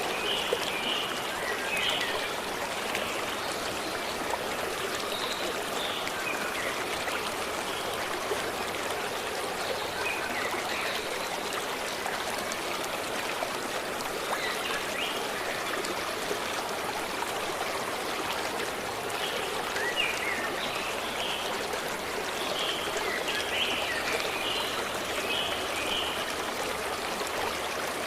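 Forest stream flowing steadily, a continuous rushing and trickling of water, with short bird chirps scattered through it, clustering near the start, in the middle and toward the end.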